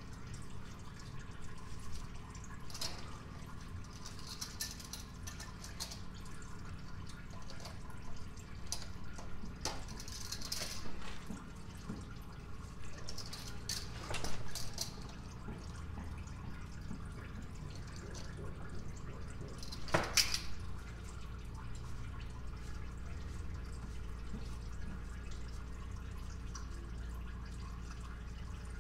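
Engine oil draining in a thin stream from the oil pan's drain hole and dripping into a catch pan. Scattered clicks and knocks come from tools working the oil filter housing loose; the loudest knock is about twenty seconds in.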